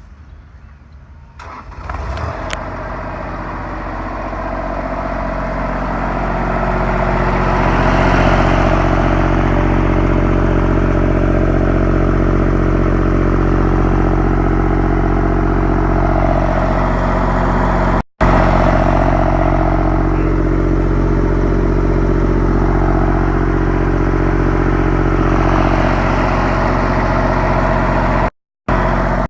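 Ditch Witch FX30 vacuum excavator's engine starting about two seconds in, then running steadily. It climbs in level over the next several seconds as it is brought up to speed, then holds at a steady, loud run.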